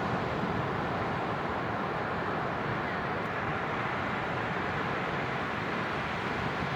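Ocean surf breaking on a sandy beach, a steady wash of waves with no single crash standing out.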